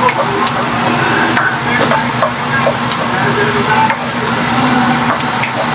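Plastic spatula stirring diced onions in a nonstick wok, clicking and scraping against the pan at irregular intervals, over the steady sizzle of the onions sautéing in oil and a steady low hum.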